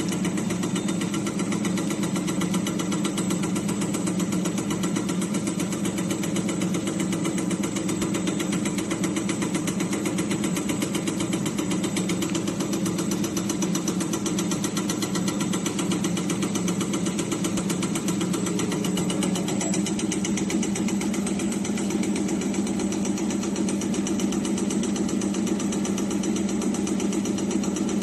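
Three-colour plastic drinking-straw making machine running: a steady mechanical hum with a fast, even clatter from the production line.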